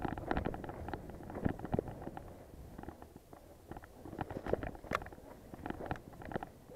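29-inch-wheeled mountain bike riding down a dirt singletrack covered in dry leaves: tyres rolling and crunching over leaves and dirt, with a dense run of clicks and knocks from the bike rattling over bumps, the sharpest about five seconds in, over a low rumble.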